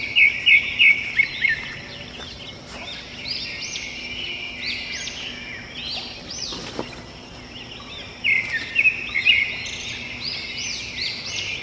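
Birds chirping and singing: runs of quick repeated chirps and arched whistled notes, busiest near the start and again from about eight seconds in.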